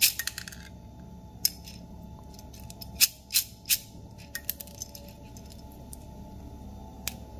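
Roasted coffee beans clicking and rattling against a small stainless steel dosing cup as it is handled and the beans are picked through by hand. A quick cluster of clicks at the start, then single sharp clicks, three close together about three seconds in.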